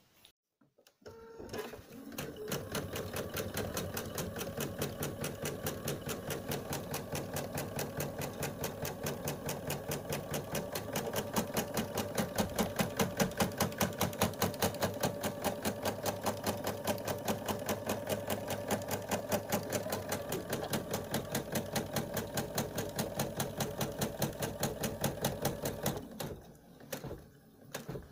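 Husqvarna embroidery machine stitching at low speed, a fast, even run of needle strokes that starts about a second and a half in and stops shortly before the end. It is sewing a tack-down line to fix the fabric in the hoop.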